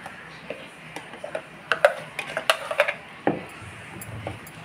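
Wooden spoon stirring freshly added curd into a thick curry in a stainless steel pot, clicking and knocking against the pot's side in a run of light taps, busiest in the middle, with one duller knock about three seconds in.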